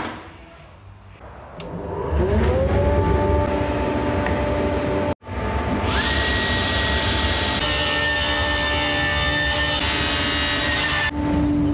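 A workshop motor winds up to a steady hum about two seconds in. After a cut, a sliding table panel saw is switched on and its motor whines up to speed; a little later a tulip wood board is ripped through the blade, a loud rushing hiss over the motor for about two seconds. Near the end there is a cut to a different, lower machine hum.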